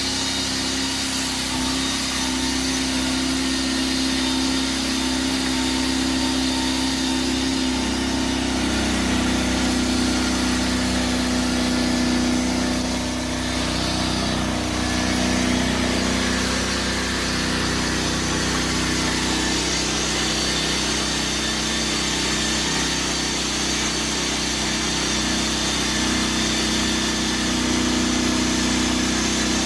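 Sawmill running steadily under load as its blade cuts a slab from a spalted silver maple log, the engine note holding even throughout.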